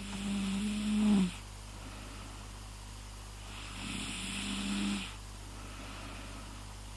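Snoring sound effect, a person's mock snore: two snores about four seconds apart, each just over a second long, a low buzzing tone mixed with breathy hiss, the first one louder.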